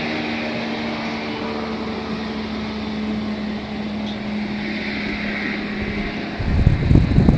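Boat motor running steadily as a tritoon pontoon boat cruises, with a broad rush of water and air under it. A little past six seconds in, wind buffeting on the microphone rises and becomes the loudest sound.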